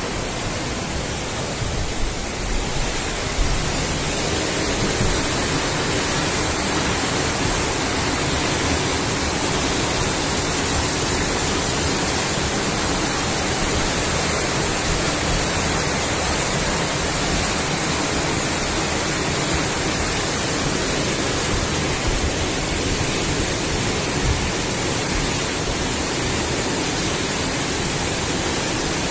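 A river in flash flood, its muddy brown water rushing past in a loud, steady churning noise.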